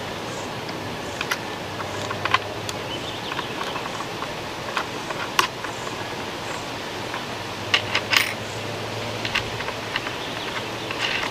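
Scattered light metallic clicks and clinks as a chainsaw-chain rivet spinner is handled and fitted onto its mounting bolts on a wooden board, over steady background noise.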